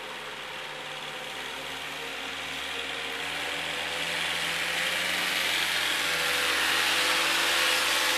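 Engine of a loaded truck-mounted forklift running as it drives closer, growing steadily louder.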